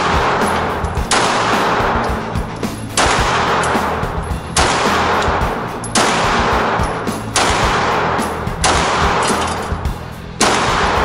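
Single shots from a 9mm pistol, about seven of them spaced roughly a second and a half apart, each sharp crack trailing off in the echo of an indoor shooting range.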